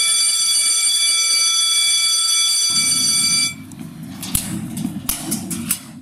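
School bell sounding a loud, steady electronic buzz that cuts off suddenly about three and a half seconds in, the signal for class change. After it come hallway bustle and several sharp metal clanks of locker doors.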